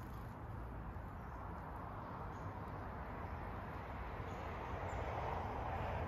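Steady outdoor background noise: a low rumble with a hiss that swells slightly toward the end, with a few faint, short high chirps.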